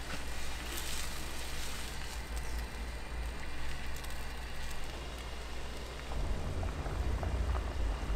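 Food sizzling and crackling on hot cooking equipment over a steady low hum, which grows louder from about six seconds in.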